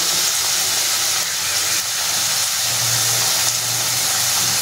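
Pieces of shakarpara dough deep-frying in hot groundnut oil in a steel kadai: a steady, high sizzle from the bubbling oil.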